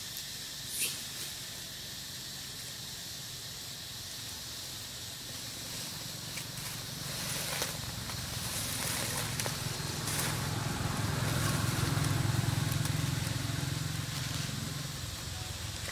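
Low engine rumble of a passing vehicle, building over several seconds, loudest about twelve seconds in, then easing off near the end. Under it runs a steady high hiss, with a few short clicks.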